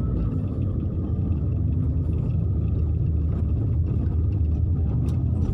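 Steady low rumble of a car's engine and tyres heard from inside the cabin while driving, with a few faint ticks over it.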